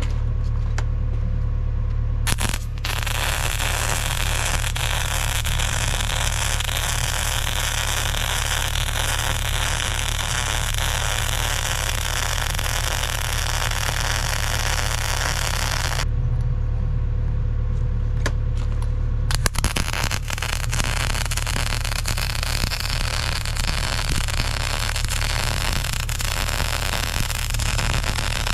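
Vulcan OmniPro 220 welder's arc crackling steadily as weld beads are laid on steel plate, in two long runs with a pause of about three seconds between them. A steady low hum runs underneath.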